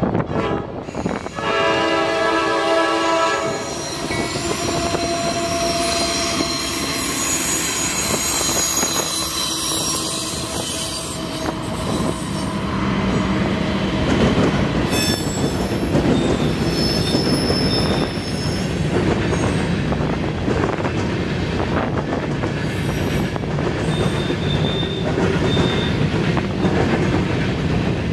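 Norfolk Southern freight train at a crossing: its horn blows a held chord for the first few seconds, then a long string of covered hopper cars rolls past with a steady rumble and short, high wheel squeals.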